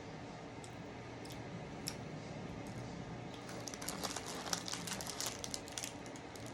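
Crinkling and crackling of a snack wrapper being handled: a few scattered clicks, then a dense run of crackles through the second half.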